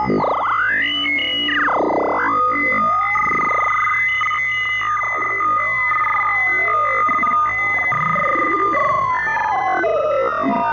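Synthesized sci-fi 'UFO communication' sound effect: steady electronic tones held underneath while other tones swoop and warble up and down in pitch.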